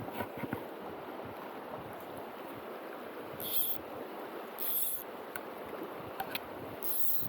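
River water rushing steadily over a riffle, with a few brief, sharp rustling noises close by.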